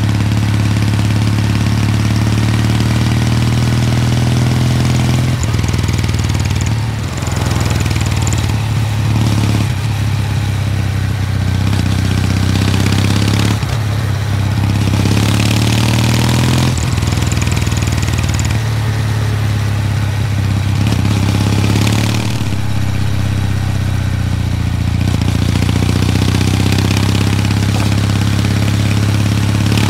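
Kawasaki W800 Street's air-cooled parallel-twin engine running while riding. Its note shifts and briefly breaks several times, over a steady rushing noise.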